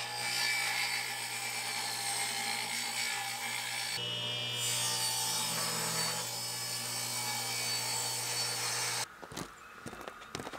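Table saw running, its blade ripping a 2x4 lengthwise into thin furring strips, with a steady motor hum under the cutting noise. The saw sound cuts off suddenly about nine seconds in, followed by a few light knocks of the wooden strips being set down.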